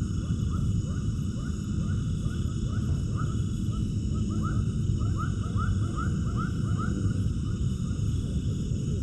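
A run of many short, rising animal calls, thickest in the middle, over a steady low rumble.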